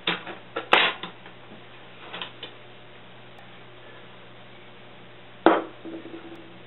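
Metal cans of a homemade tin-and-aluminium-can wood gas stove clanking and knocking as they are lifted apart and set down. There are a few sharp knocks near the start, a couple more a little after two seconds, and the loudest clank about five and a half seconds in, followed by a brief ringing tone.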